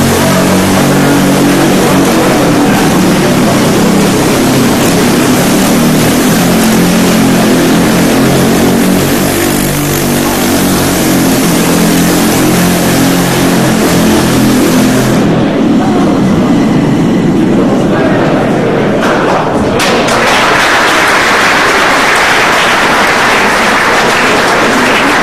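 Compressed-air Quasiturbine motor of a go-kart running, a steady hum whose pitch drifts up and down as the kart drives about, under a haze of hissing noise. About twenty seconds in the hiss grows louder.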